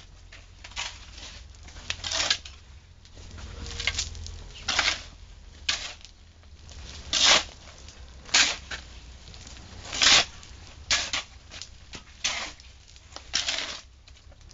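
Shovels scraping and scooping a dry sand-and-cement mix piled on bare ground, in short irregular strokes about once a second.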